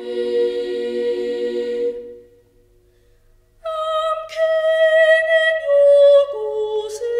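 Unaccompanied singing voices: a held chord that fades out about two seconds in, then after a short pause long sustained notes that step downward.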